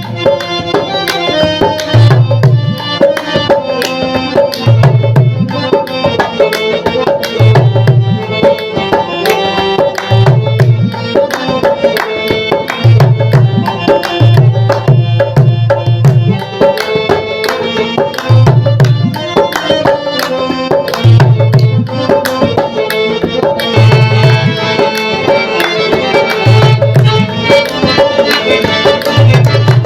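Background music with tabla and drums keeping a steady beat under a melodic instrumental line.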